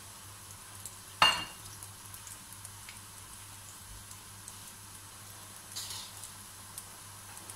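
Aloo samosas deep-frying in oil in a frying pan over medium heat, a steady sizzle. About a second in there is one sharp, ringing clink, with a smaller crackle near the end.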